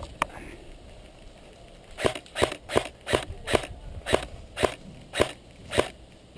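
Airsoft rifle firing single shots, each a sharp crack: one just after the start, then about nine in a row at roughly two a second from about two seconds in.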